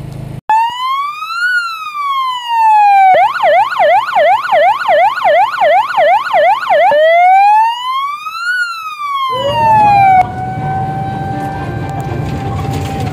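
Electronic emergency siren: a rising and falling wail, then a rapid yelp at about four cycles a second, then another wail. About ten seconds in it gives way to a fire engine's siren winding up over the truck's engine rumble, holding one steady tone and beginning to fall near the end.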